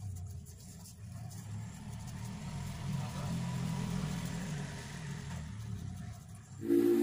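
A motor vehicle's engine in the background, growing louder over a few seconds and then falling away. Just before the end a much louder sound with a steady pitch cuts in.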